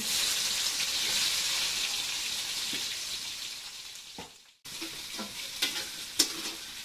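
Chopped onions dropped into hot oil and mustard seeds in a metal pan, sizzling loudly at once, the sizzle fading over about four seconds. After a sudden break, a metal ladle stirs the pan, clinking and scraping over a softer sizzle.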